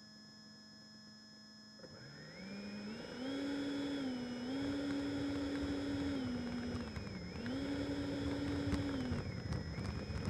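Electric ducted fans of a Freewing F-22 RC jet, heard through its onboard camera, spooling up about two seconds in with a rising whine, then stepping up and down in pitch several times as the throttle changes, over a rough rumbling noise.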